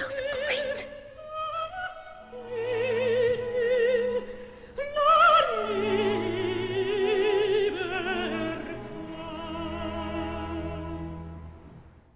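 Operatic singing with wide vibrato on long held notes over orchestral accompaniment. It fades out near the end.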